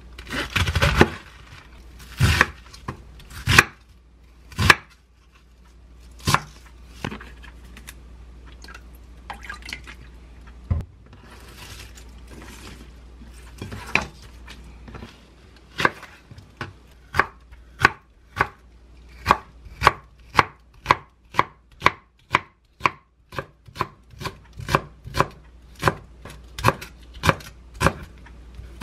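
Chef's knife chopping on a wooden cutting board. First come a few heavy, irregular cuts through a head of cabbage. Then, from about halfway, a steady run of chops about two a second as green onions are sliced.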